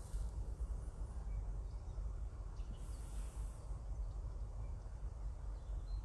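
Outdoor ambience: a low, uneven rumble with a few faint bird chirps and a brief high hiss about three seconds in.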